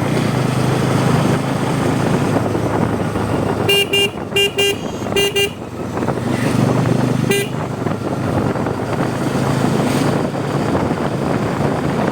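Bajaj Pulsar N250 motorcycle running on the move, its engine and road noise steady. About four seconds in a horn gives three quick double toots, and one more short toot comes a couple of seconds later.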